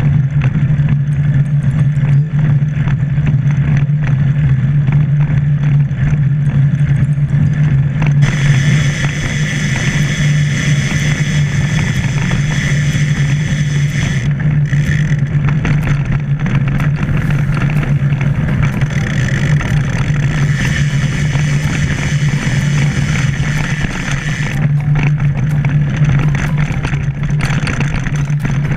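Steady low drone of a motor vehicle running at a constant speed, with road and wind hiss that grows louder for a while in the middle.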